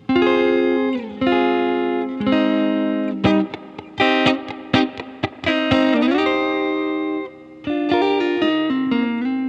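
Stratocaster electric guitar playing a clean rhythm part, reamped through a Fender tube amp with the amp's own spring reverb. Chords ring out with sliding notes, and there is a run of short choppy strums in the middle.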